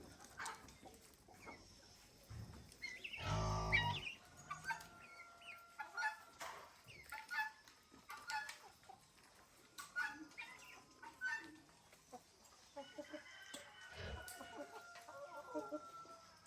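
Chickens clucking and calling in short bursts, with one louder, longer call about three seconds in.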